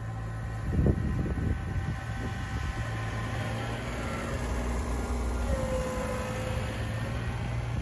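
Kubota BX compact tractor's three-cylinder diesel engine running steadily under work, with a short low rumble about a second in.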